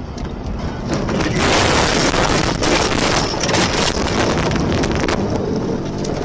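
A car ploughing off the road into deep snow: a loud rush of snow blasting over the windshield and body, full of scraping and knocks, starting about a second in and easing off about five seconds in, over the low rumble of the car moving.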